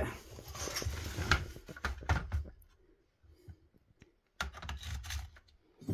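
Light clicks and rattles of metal drill bits being handled in a plastic drill-bit case. They come in two spells, with a pause of about two seconds between them.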